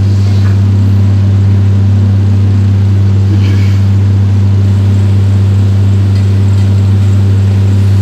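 Backhoe excavator's diesel engine running at a steady speed, heard from inside the cab as a loud, unchanging low hum.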